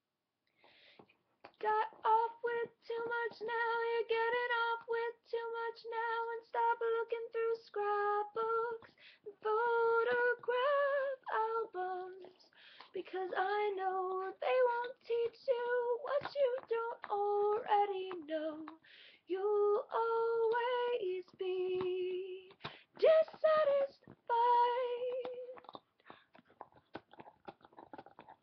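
A woman singing alone with no accompaniment, a slow melody of long held notes that stops a few seconds before the end.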